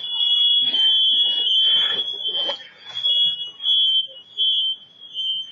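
Smoke alarm sounding a steady, high-pitched tone, set off by the fire in the house.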